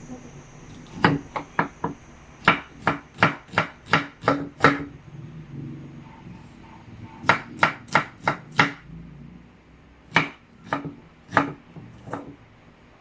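Kitchen knife chopping on a cutting board in quick runs of knocks, about three a second, with short pauses between the runs.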